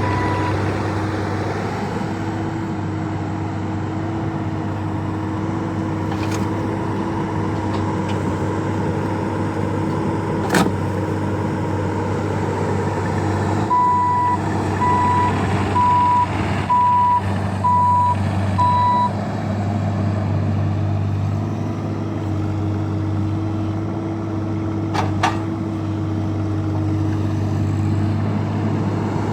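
Bobcat E26 mini excavator's diesel engine running steadily under work. About six evenly spaced beeps from its travel alarm come midway through, and there are two sharp knocks, one a third of the way in and one near the end.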